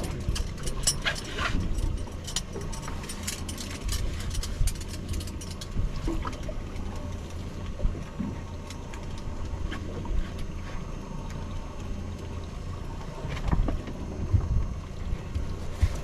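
Steady low rumble around a small boat on the water, with scattered clicks and light splashes of water.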